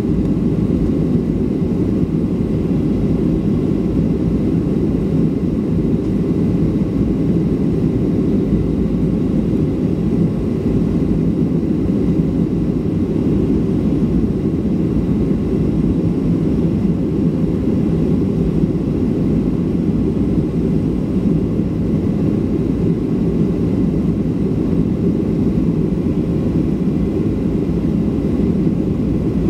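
Steady cabin noise inside a Boeing 737-500 climbing after takeoff: the even rush of airflow and the CFM56-3 turbofan engines at climb power, heard through the cabin wall beside the wing. Faint steady whines sit above the low rumble.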